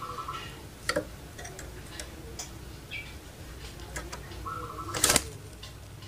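Sounds from caged puter pelung doves: short calls and scattered clicks, with a loud brief clatter about five seconds in.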